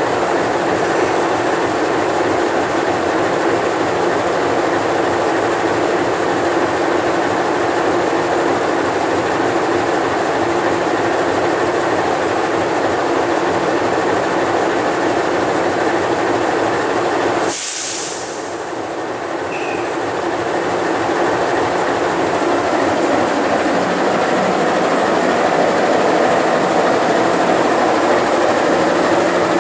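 CC 206 diesel-electric locomotive's GE V8 engine idling steadily, heard close alongside the engine hood. About two-thirds of the way through there is a short sharp hiss, and the sound drops quieter for a few seconds before building back up.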